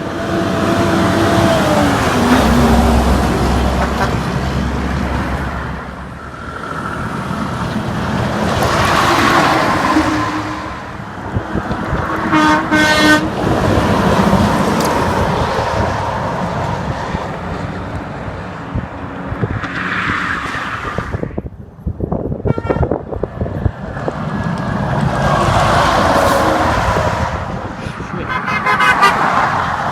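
Trucks and cars passing one after another at highway speed, each swelling and fading as it goes by, with a short vehicle horn toot among them.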